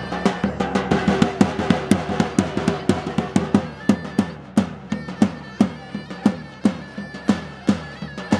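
Folk dance music for a line dance: a heavy drum beats a loping, uneven long-short rhythm under a sustained melody line.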